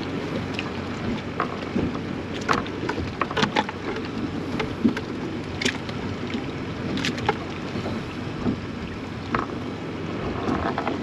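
Wind and water lapping against a small boat's hull, a steady low wash, with a handful of short sharp clicks and taps scattered through it.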